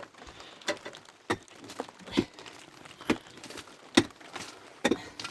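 A series of short, irregular knocks and taps, about one every half second to second, the loudest about four seconds in.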